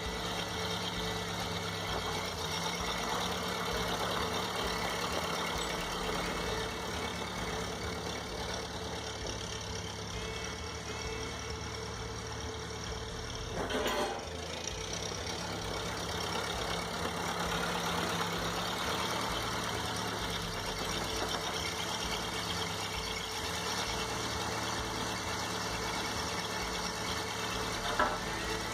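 1952 Ford 8N farm tractor's four-cylinder gasoline engine running steadily while dragging gravel, with a single knock about halfway through and a sharp click near the end.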